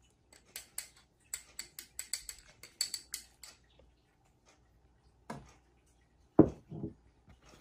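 Metal spoon scraping and clinking against a small glass bowl as salt is scooped out, a quick run of light clicks. About six and a half seconds in, the glass bowl is set down on the table with a single louder knock.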